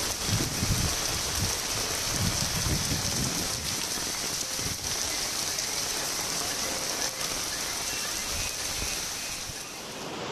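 Heavy rain pouring in a steady hiss, with low rumbling gusts over the first few seconds.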